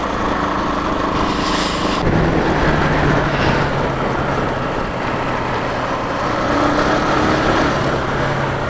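Motorcycle engine running at a steady cruise with loud wind rushing over the microphone; the engine hum shifts slightly about two seconds in.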